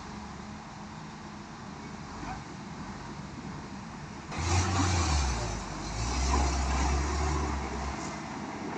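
Heavy diesel engines of a Kato truck crane and a SANY SY205C excavator, running steadily, then working hard from about four seconds in with a deep rumble as the mired crane is towed out of the mud. The rumble eases off near the end.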